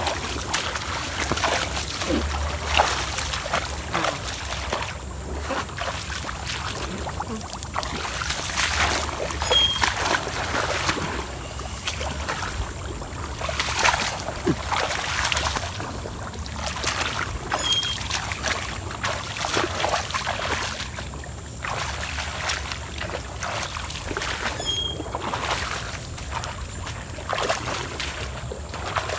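Irregular swishing and splashing from wading through tall wet grass and shallow swamp water, with a mesh hand net being pushed through the water and vegetation.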